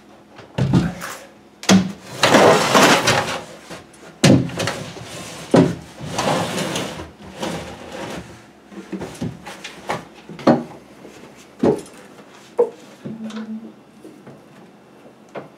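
A plywood cabinet carcass being manhandled into place: scraping and sliding noises as it is shifted and pushed over the concrete floor, then several sharp wooden knocks as it is bumped home under the workbench.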